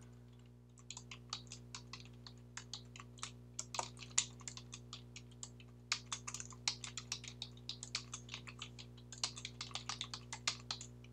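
Computer keyboard typing in quick runs of keystrokes with short pauses, over a faint steady hum.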